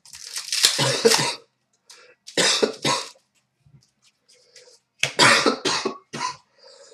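A person coughing repeatedly, in three short fits of several hard coughs each.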